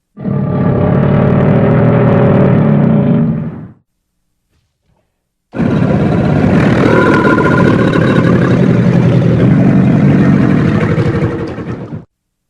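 Cartoon mongoose sound effect played twice as separate clips: a loud, rough, noisy sound of about three and a half seconds, then dead silence, then a longer, brighter one of about six seconds that cuts off abruptly.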